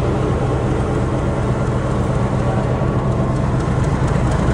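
Meter-gauge diesel locomotive engine idling with a steady low drone.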